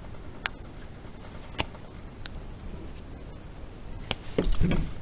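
Small scattered clicks and ticks from a Rubik's Cube being handled while a sticker is applied, with a louder cluster of knocks and handling noise near the end.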